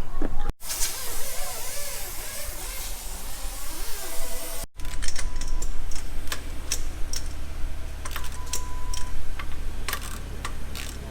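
A loud hiss for about the first four seconds. Then many irregular sharp clicks and taps over a steady low hum.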